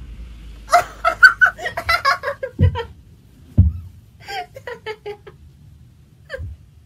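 A person giggling and laughing in quick, broken bursts while the soles of her feet are tickled. Two dull thumps come midway.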